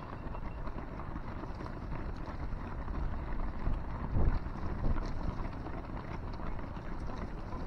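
Many runners' shoes patter on asphalt as a large pack of half-marathon runners streams past, with wind buffeting the microphone and a louder gust about four seconds in.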